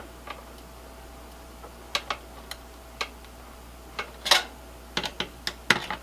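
Scattered light clicks and taps of metal and plastic as a CPU heatsink is set back onto the processor in a Dell T320 server and its screws are taken up with a screwdriver. The clicks come irregularly, a few a second in places, with the loudest knock about four seconds in.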